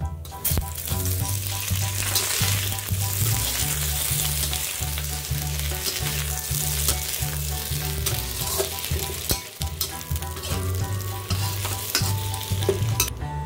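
Hot oil sizzling hard in a wok as eggplant, potato and green pepper are stir-fried. The sizzle starts suddenly about half a second in and is broken by a few sharp clicks.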